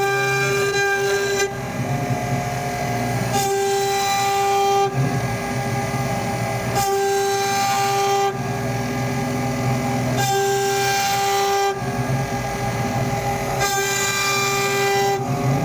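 CNC router running: a steady pitched machine whine sounds for about a second and a half, then gives way to a rougher, noisier stretch, and the cycle repeats about every three and a half seconds as the machine works through repeated passes.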